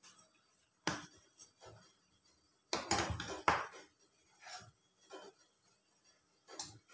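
Handling sounds: a banana leaf rustling as it is laid on a plastic cutting board and a stainless steel bowl of batter being gripped and moved. Scattered short knocks, with a sharp one about a second in and a cluster of louder knocks around three seconds in.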